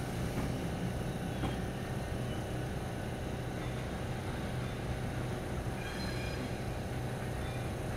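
Illinois Central Gulf GP8 diesel-electric locomotive's EMD 567 V16 engine running at the head of a departing passenger train, heard as a steady low drone as the train moves away.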